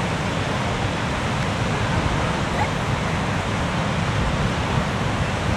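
Steady rush of white-water rapids pouring over the brink of Horseshoe Falls, an even, unbroken roar of falling water.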